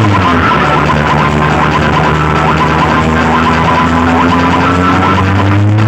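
Very loud electronic music from a DJ sound system: sustained bass and synth tones that glide down at the start, hold steady, and sweep up again near the end, with a choppy siren-like higher tone over them.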